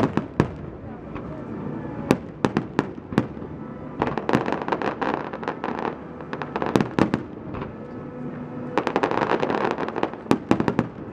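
Fireworks finale: a barrage of shells bursting in quick succession, sharp bangs scattered throughout and thickening into dense rapid volleys about four seconds in and again around nine seconds.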